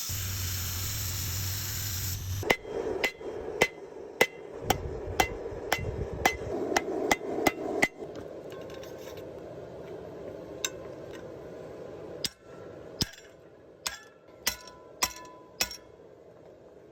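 Hand hammer striking steel on an anvil while forging a blade: about a dozen ringing blows, roughly two a second, then a pause and a few more scattered blows. A steady hiss runs for the first couple of seconds before the hammering starts.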